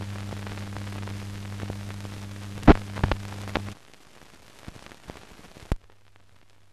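Steady hum and hiss of an old film soundtrack with scattered crackles and pops. The hum drops away about four seconds in, and a last sharp pop comes near six seconds, leaving only faint hiss.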